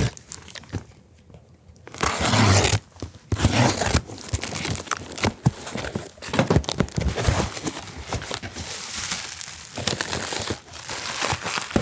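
A cardboard shipping box being cut and torn open, with a loud tearing rip about two seconds in, then packing paper crinkling and rustling as it is handled and pulled out of the box.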